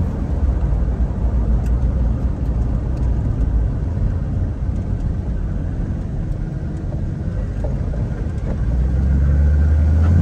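Inside the cabin of a 1933 Ford Victoria hot rod under way: the Ramjet 350 small-block V8 runs with road and wind noise, the wind coming in around the suicide doors. About eight and a half seconds in, a steadier low engine drone comes in.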